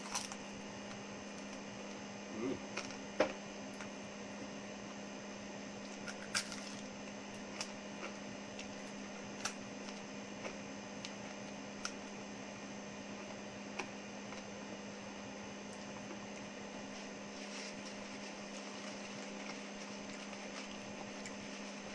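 Steady hum of a room air conditioner, with scattered faint clicks and taps every second or two.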